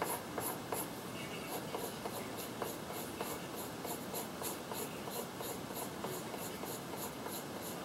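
Pencil scratching on paper in quick, short, evenly repeated strokes, about four a second, as tufts of fur are sketched onto a drawing.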